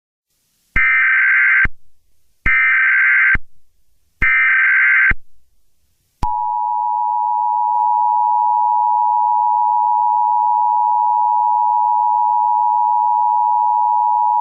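Emergency Alert System tones: three SAME header data bursts of about a second each, about a second apart. About six seconds in, the two-tone attention signal (853 and 960 Hz) starts and holds steady.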